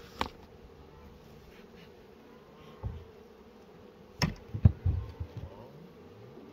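Honey bees buzzing in a steady hum around an open hive. A sharp click near the start and a cluster of knocks and thumps about four seconds in, the loudest sounds, from hive equipment being handled.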